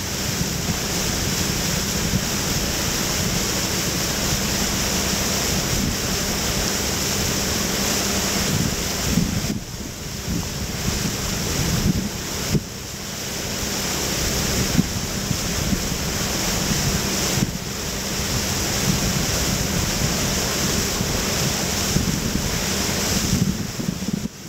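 Steady rush of wind on the microphone mixed with water noise, dipping briefly a few times.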